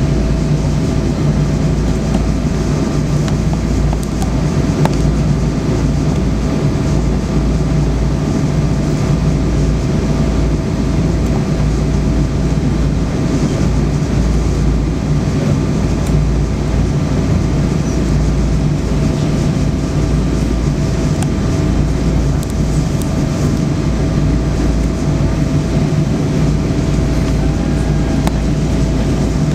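Cabin noise inside a Boeing 777-200ER taxiing on the ground: a steady low rumble of engines and rolling wheels, with a thin steady whine above it.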